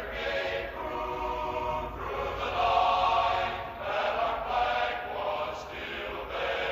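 A choir singing a national anthem in long held notes, the sign-off anthem of a station's final broadcast.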